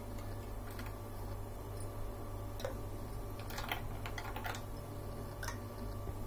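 Ice cubes dropped into glasses of sattu sharbat, giving a few scattered light clinks, with more in quick succession in the second half, over a steady low hum.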